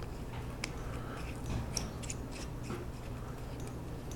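Scattered light clicks and ticks of small plastic parts being handled and pressed on a tiny keychain flashlight while trying to make it light, over a faint steady low hum.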